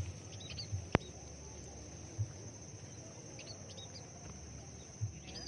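Small birds giving short, high chirps a few times over a steady high insect buzz. There is one sharp click about a second in and a few soft low thumps.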